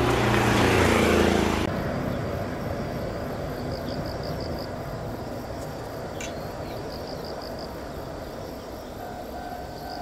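A motor vehicle passing on the road beside the tracks, its engine hum cut off abruptly about two seconds in. Then quiet outdoor ambience with a few short runs of rapid high chirps, and near the end the level crossing's warning signal starts sounding with a steady tone.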